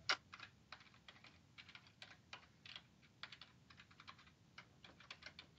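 Faint computer keyboard typing: irregular key clicks, some in short quick runs with small pauses between.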